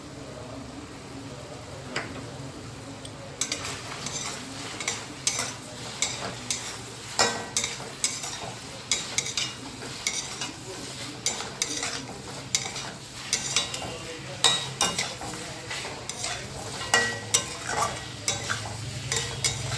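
Chicken pieces frying in a pan, sizzling, while a spoon stirs and scrapes them against the pan. The stirring begins a few seconds in as irregular clatters, about two a second.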